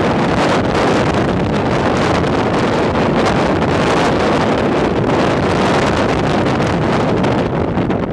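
Strong storm wind buffeting the microphone: a loud, steady, gusting rush.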